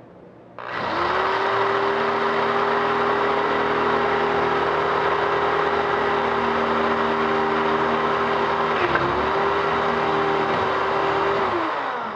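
Electric drill running steadily as it bores into a trigger lock, its motor whine dipping briefly about nine seconds in under load, then winding down near the end.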